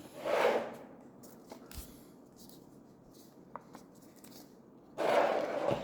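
Rustling from handling a comic book and its packaging: a short swell of rustling just after the start, a few faint taps, then a louder stretch of rustling near the end.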